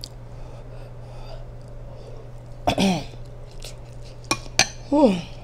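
A woman eating, making two short wordless sounds of enjoyment, each falling in pitch, with a few sharp mouth or utensil clicks between them. A steady low electrical hum sits under everything.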